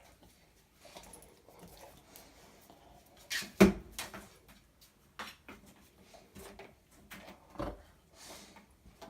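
Dog snoring in its sleep, with two louder snores about four seconds apart.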